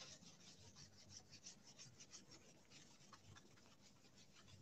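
Faint, quick strokes of a cotton cloth rubbing over a waxed Venetian stucco panel by hand, buffing the wax to bring up a shine.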